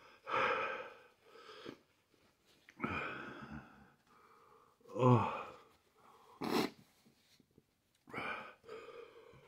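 A man breathing hard through an open mouth in a series of breathy exhalations, with a groaned "oh" about five seconds in and one short, sharp burst of breath a little later. It is his reaction to the burning of a super-hot chili pepper in his mouth.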